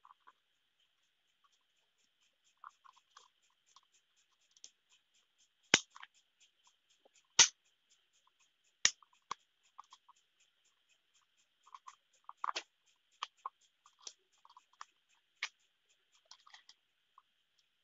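Scattered plastic clicks and taps from a small action camera and its plastic frame mount and clear waterproof housing being handled, with a few louder snaps in the middle.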